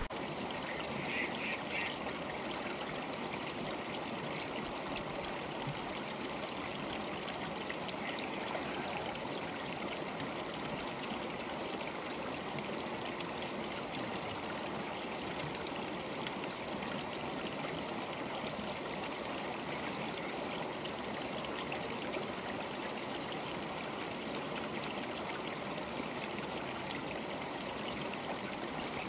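River water flowing steadily, a continuous rushing of the stream.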